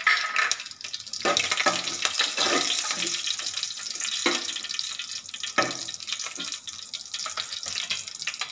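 Hot oil sizzling and crackling in a kadai around frying mustard seeds, cumin, curry leaves and turmeric, with a slotted spatula scraping through it in a few strokes.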